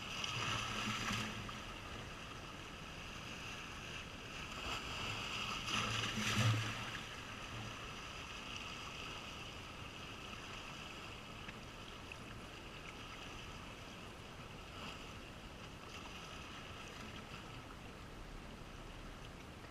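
Seaside ambience: a steady hiss of wind and sea, swelling twice, about a second in and again around six seconds in.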